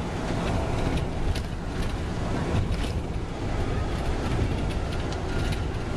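Steady rumble of travel heard from inside a moving vehicle, with a few faint ticks.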